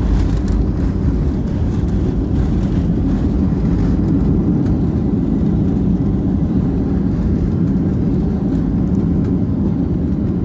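Steady low rumble inside the cabin of a Boeing 737-700 rolling on the runway after landing: engine and wheel noise as the jet slows down.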